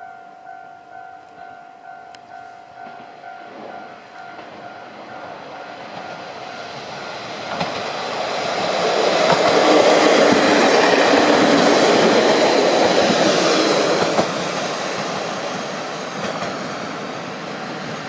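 KiHa 40 diesel railcars approaching and passing close by, the engine and wheel noise building to a loud rush around the middle, with wheels clicking over rail joints, then fading as the train moves away. A level crossing bell rings steadily in the first part, until the train comes near.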